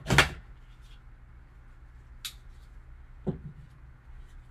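Gloved hands slitting the seal on a cardboard trading-card box: a short loud rip of the seal right at the start, then a sharp click a couple of seconds in and a softer knock a second later as the box is handled.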